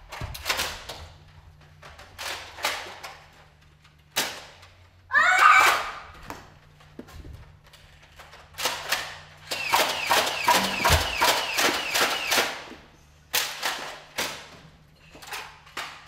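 A scattered series of sharp clicks and thuds from a Nerf war: foam-dart blasters firing and darts striking. There is a loud burst about five seconds in, and a quick run of clicks about nine to twelve seconds in.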